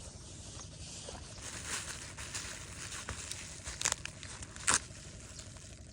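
Plastic bag crinkling and rustling as rubbish is gathered into it, with two sharper snaps in the second half.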